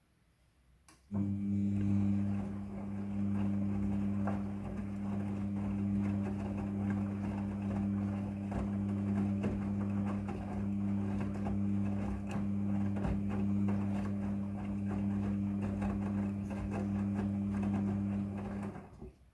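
Midea front-loading washing machine humming steadily with water rushing. The hum cuts in suddenly about a second in and stops shortly before the end.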